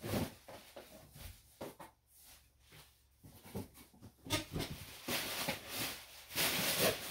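Rustling and shuffling of packaging and boxes being handled, faint at first and getting louder from about four seconds in.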